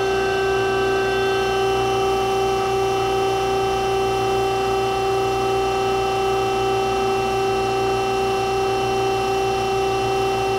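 Harig EZ-Surf II CNC surface grinder running with its grinding-wheel spindle at speed and the hydraulics on: a steady hum with a constant whine that does not change, smooth and quiet as the axes are jogged.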